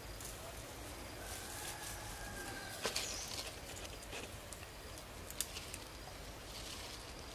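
Quiet outdoor forest ambience with a distant rooster crowing once, a drawn-out arched call about a second in. A few sharp clicks or snaps break in, the loudest at about three seconds, with faint high bird chirps behind.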